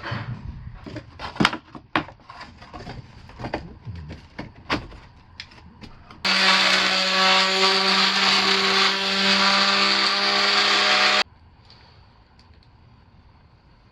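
A run of sharp knocks and taps over the first five seconds. Then an electric power tool runs at a steady pitch for about five seconds, starting and stopping abruptly.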